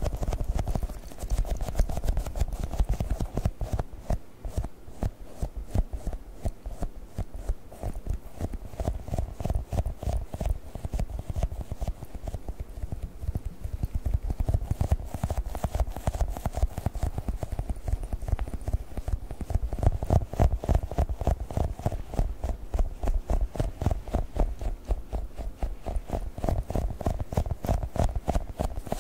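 Fast, continuous tapping on Globbles, squishy gel toy balls: a steady run of many quick, soft taps a second.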